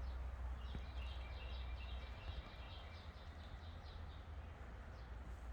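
A songbird calling a quick run of short, evenly repeated high chirps, about four a second, over a low steady rumble outdoors.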